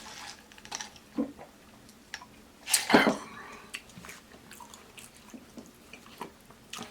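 Close-miked eating of oxtail: wet chewing, lip smacks and sucking of meat off the bone, in scattered short clicks, with one louder wet burst about three seconds in.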